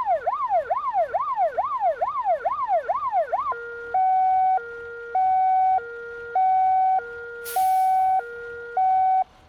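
Fire engine's electronic siren cycling through its tones: a fast yelp sweeping up and down about twice a second, then a two-tone hi-lo pattern alternating between two notes, cutting off suddenly near the end. A brief hiss sounds over it about three quarters of the way through.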